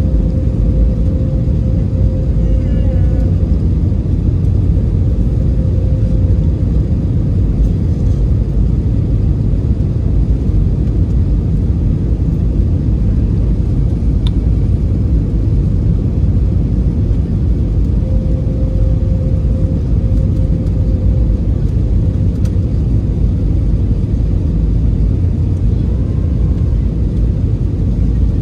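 Steady cabin noise of a jet airliner on final approach: a loud low rumble of engines and rushing air. A faint steady hum comes in twice, near the start and about two thirds of the way through.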